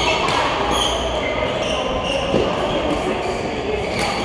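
Badminton hall ambience: a steady wash of distant voices and play echoing from the other courts, with brief squeaks of shoes on the court floor in the first couple of seconds and a couple of sharp racket-on-shuttlecock hits, one a little past halfway and one near the end.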